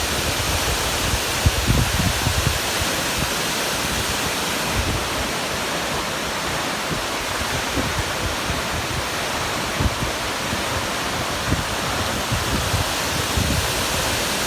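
Waterfall rushing in a steady, even roar of falling water, with low gusts of wind buffeting the microphone in the first few seconds.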